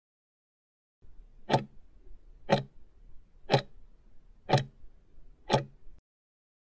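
Clock-tick sound effect counting down an on-screen timer: five sharp ticks, one a second, over a faint low hum, marking the last seconds before the next recording starts.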